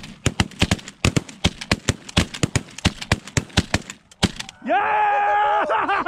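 Rapid volley of shotgun fire from several hunters shooting at a flock of snow geese: about two dozen sharp shots packed into some four seconds, overlapping and then tailing off. A man's long shout follows near the end.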